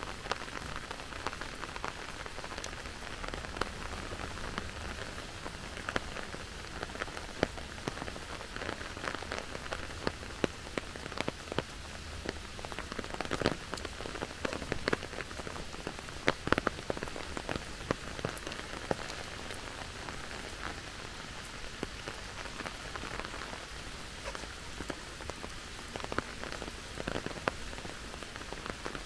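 Steady rain falling, with many sharp drops hitting close by at irregular moments.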